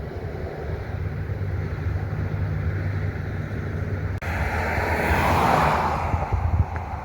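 Wind buffeting the microphone over a steady low rumble. About four seconds in, a stronger rushing gust starts suddenly, swells, then fades near the end.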